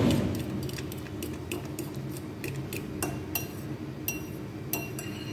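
Fork beating eggs and chopped vegetables in a glass bowl: an uneven run of quick clinks of metal tapping against glass, with the wet slosh of the mixture.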